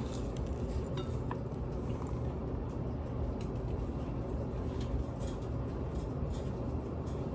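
A few faint light taps and clinks of kitchen dishes and bowls over a steady low hum.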